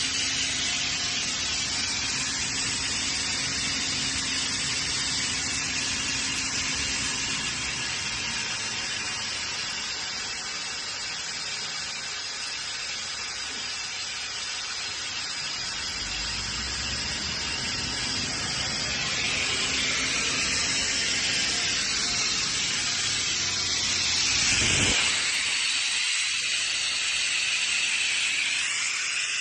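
Atlas Copco GA37 VSD oil-injected rotary screw air compressor running, a steady hiss of air with a faint hum. About 25 s in the low rumble drops away and a louder, higher hiss takes over.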